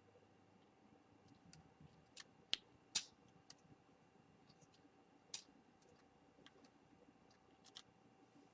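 Faint, scattered small clicks and taps of a precision screwdriver and tiny screws while an iPhone 4's corner screws are being taken out, with two sharper clicks close together about two and a half seconds in.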